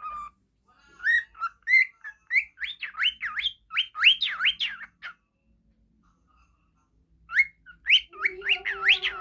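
Pet parrotlet (falk) whistling: runs of quick, high notes that sweep up and down, a pause of about two seconds, then another run. A lower steady tone sounds under the last run near the end.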